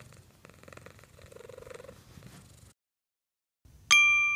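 Colorpoint Persian cat purring softly until a little before three seconds in. Just before the end, a single bright electronic ding strikes and rings on, fading slowly: a logo chime.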